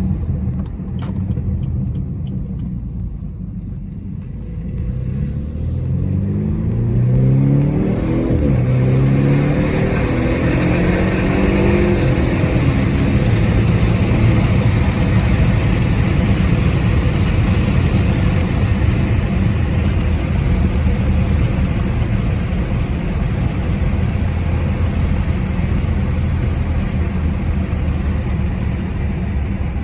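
BMW F30 3 Series engine and exhaust: a few brief crackles at the start, then a pull under acceleration from about six seconds in, the engine note rising. It settles into a steady, loud drone mixed with road noise.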